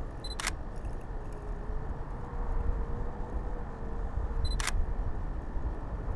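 Wind buffeting the microphone of a kite-borne camera rig, with two sharp camera shutter clicks about four seconds apart, each just after a short beep.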